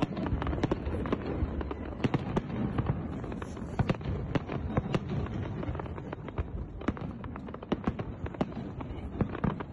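Fireworks going off: many sharp, irregular bangs and crackles, several close together, over a continuous low rumble.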